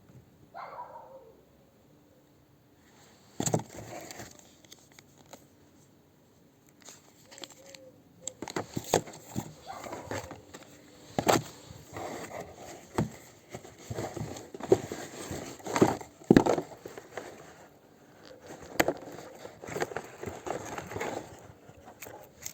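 Packaging being handled and opened: rustling, crinkling wrap with frequent clicks and knocks. It starts about three seconds in and is busiest from about eight seconds to near the end.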